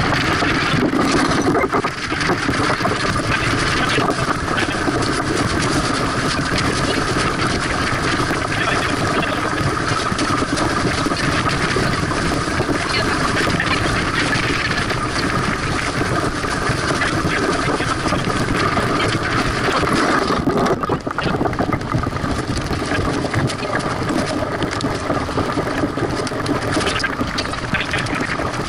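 Steady rush of wind and water noise aboard a sailboat under way, sped up eight times, so it comes across as a dense, unbroken hiss and drone.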